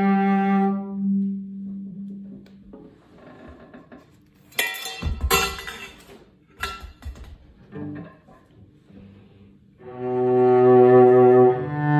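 Solo cello: a long bowed note fades away, then after a pause filled with a few knocks and rustles of handling, a new bowed phrase begins near the end with a change of note.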